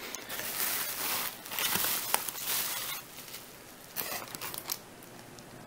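Bubble wrap and plastic packaging rustling and crinkling as a hand digs through a foam-lined shipping box, with a few short, sharper crackles about four seconds in.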